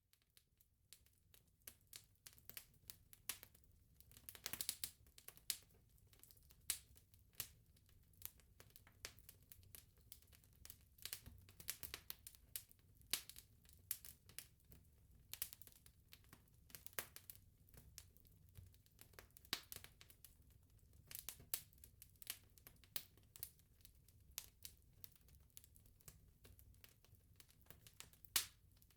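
Wood bonfire crackling: irregular sharp pops and snaps of burning logs, some loud and most small, over a low steady rumble of the flames.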